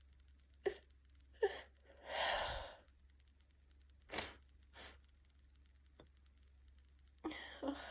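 A woman's sharp, catching gasps as a sneeze builds in her nose, which is tickled by chhinkni herbal sneezing powder and congested by a cold. The loudest sound is one breathy burst a little after two seconds in, and more short gasps follow near the end.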